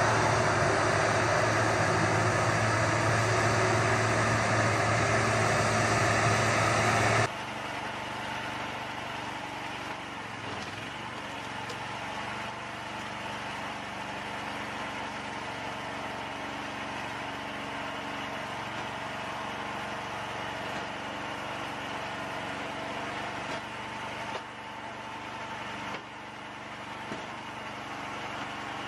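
A tractor-mounted firewood processor's engine and big circular saw running loud and steady as it cuts logs. About seven seconds in it gives way to the quieter, steady hum of a small engine driving a homemade hydraulic log splitter, with a few faint knocks.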